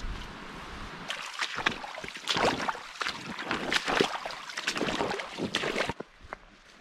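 Water splashing and sloshing in irregular, rapid strokes, which cut off suddenly about a second before the end.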